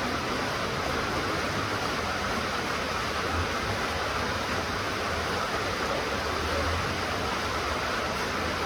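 Steady rain falling, an even continuous hiss with a low rumble underneath.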